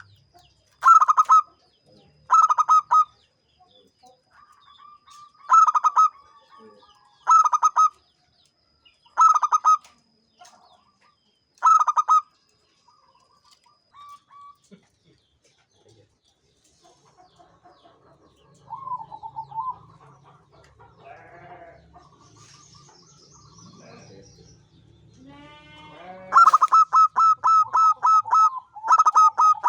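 Zebra dove (perkutut) cooing: short bursts of rapid staccato notes, six of them roughly every two seconds, then after a quieter stretch a longer run of quick notes near the end.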